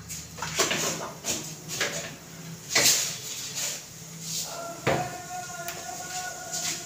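Cumin seeds crackling and popping in hot oil in a kadhai, with irregular sharp pops. A faint steady tone joins about two-thirds of the way through.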